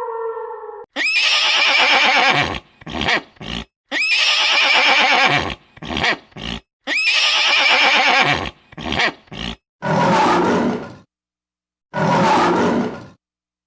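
A horse whinnying three times, each long neigh followed by two or three short bursts. Then two shorter, lower roars from a large animal, about two seconds apart, near the end.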